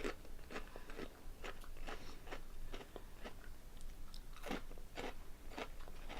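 Close-up chewing of a crunchy ribbed Honey Tong Tong potato snack: a steady run of crisp crunches, about two or three a second, a little louder about two-thirds of the way through.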